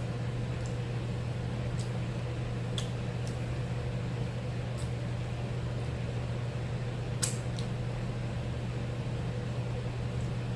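Steady low hum of room background, like a fan or appliance, with a few faint scattered clicks and knocks, the sharpest about seven seconds in.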